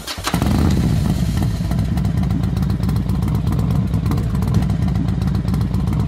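Motorcycle engine running loud and steady with a low, rapid rumble, starting suddenly just after the start.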